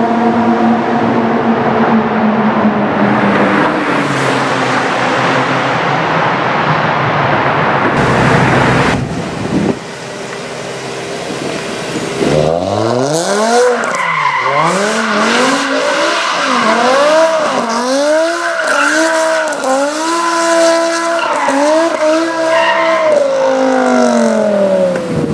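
A car engine running through an echoing road tunnel. Then, from about halfway, a BMW M5 E60's V10 with a Botter aftermarket exhaust doing donuts, its revs rising and falling about once a second over tyre squeal, and dropping away near the end.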